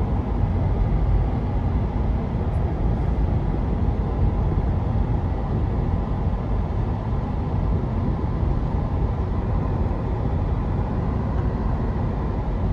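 Steady road and engine noise inside a moving car's cabin, strongest at the low end and without change.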